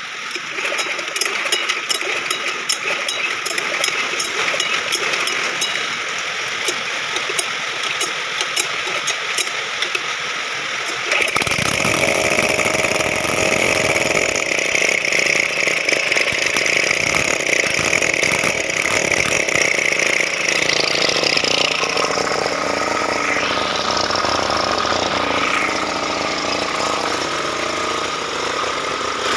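Kisankraft power weeder's single-cylinder diesel engine running steadily after a full repair and timing setting. The sound turns fuller and louder about eleven seconds in.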